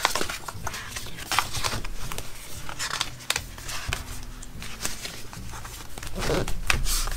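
Paper sticker-book pages rustling and crinkling as they are flipped and handled, with scattered light clicks and taps.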